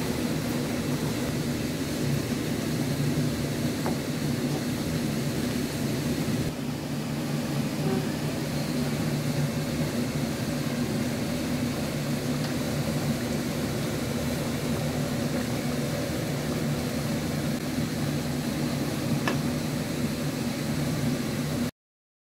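A steady machine hum: a low drone with a noisy whoosh over it, cutting off suddenly near the end.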